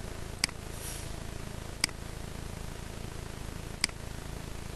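Three sharp computer mouse clicks a second or two apart, over a steady low hum.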